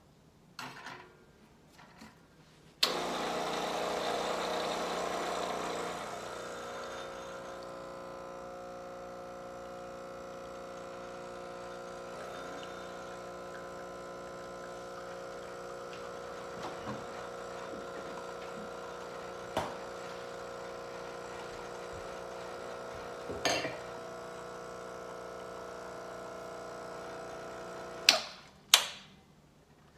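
Ascaso Dream espresso machine's vibratory pump pulling a shot: it starts with a click about three seconds in, runs louder for the first few seconds as it pushes water into the puck, then settles to a steady hum. It stops with a couple of sharp clicks near the end as the brew button is pressed.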